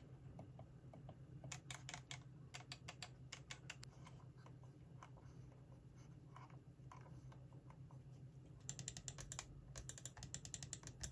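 Soft, muted button clicks of a Royche RX-900S low-noise half-vertical mouse, a few faint ones scattered over the first seconds, then from about nine seconds in a quick run of sharper, louder clicks from an ordinary wired mouse, heard side by side to show how quiet the RX-900S's buttons are.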